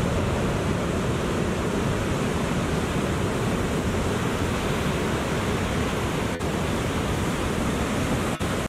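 Breaking ocean surf, a steady rushing noise, with wind on the microphone. The sound drops out very briefly twice near the end.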